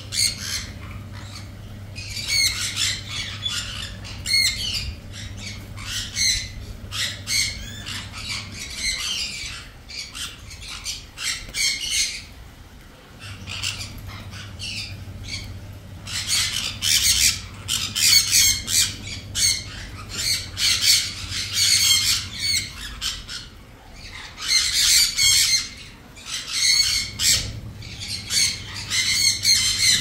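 Lovebirds squawking in clusters of short, harsh, rapid calls, with a quieter spell of a few seconds about a third of the way through.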